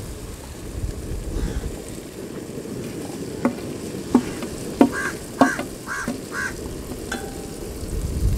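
Conch meat and onion-tomato masala frying in a wide aluminium pan with a low sizzle, while a utensil stirs it in. Several sharp knocks and scrapes of the utensil on the pan come from about three and a half to seven seconds in, with a few short squeaks among them.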